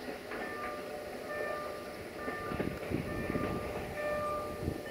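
A passenger train at a station, with a string of short, high-pitched tones repeating about two or three times a second over a low rumble. There are gusts of wind on the microphone in the second half.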